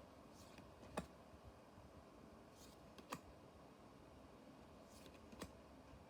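Digimon trading cards being handled quietly: three faint sharp clicks about two seconds apart, each with a soft swish of card just before it, as cards are flicked through and laid down. Otherwise near silence.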